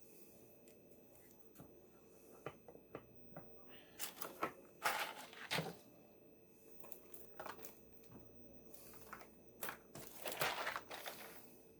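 Handling noises: scattered light clicks and taps, with two spells of crinkling rustles, one a few seconds in and one near the end.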